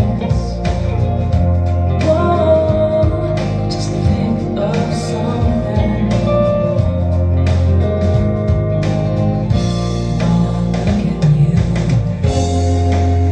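A recorded song with singing and guitar, played back through an Electro-Voice Coronet two-way loudspeaker from about 1965.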